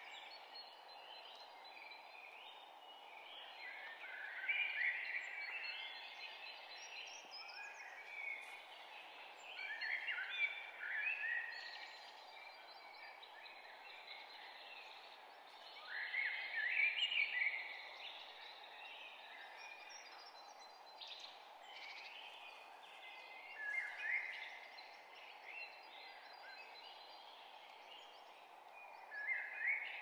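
Songbirds singing in a forest, with bursts of chirping phrases every five or six seconds over a steady low background hiss.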